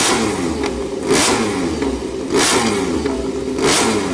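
Repsol Honda MotoGP bike's V4 engine blipped repeatedly on the throttle, a sharp rev about once every second and a quarter with the revs falling away after each.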